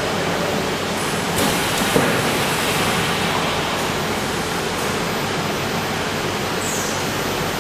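Steady, even rushing noise of a moving PVC tarpaulin welding machine running, with a brief knock about two seconds in.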